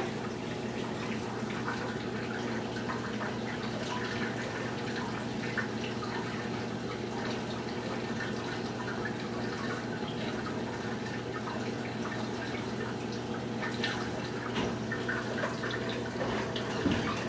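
Saltwater aquarium running: a steady low hum from its pump with water trickling and bubbling, and small drips and ticks throughout.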